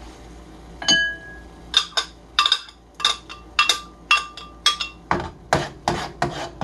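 Kitchen utensils clinking against cookware while the sauce is seasoned. There is one ringing clink about a second in, then a run of sharp ringing taps, then duller knocks about twice a second near the end.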